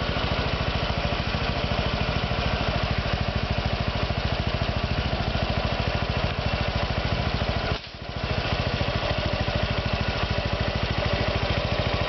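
Honda Vario 125 PGM-FI scooter's liquid-cooled single-cylinder engine idling hot, a steady even pulsing, with a brief dip in level about eight seconds in. It runs a new coil, spark plug and a wider stainless muffler neck, which the owner believes have cured the idle 'snore'.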